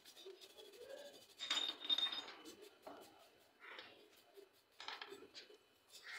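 Metal parts and tools clinking and knocking as they are handled, in a string of short separate clinks with a louder cluster about one and a half seconds in.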